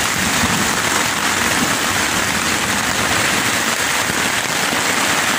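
Rain falling steadily on a tent's rain fly and the surrounding forest, heard from inside the tent as an even, unbroken hiss.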